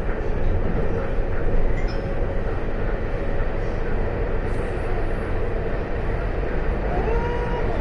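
EMU800 electric multiple unit running along the line, a steady rumble of wheels on the rails with a steady hum through it. Near the end a short tone rises and then holds.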